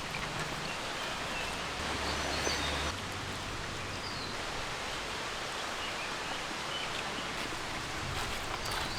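Outdoor rural ambience: a steady, even background noise with a few faint short bird chirps.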